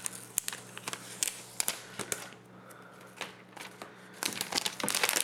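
Clear protective plastic film being peeled off the back of a tablet and handled, crinkling and crackling in scattered sharp snaps that come thicker near the end.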